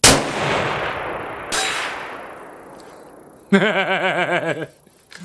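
A single precision rifle shot: a sharp crack that rolls away slowly across the range, with a strong echo coming back about a second and a half later. About three and a half seconds in comes a short wavering vocal from the shooter, then a few small metallic clicks near the end.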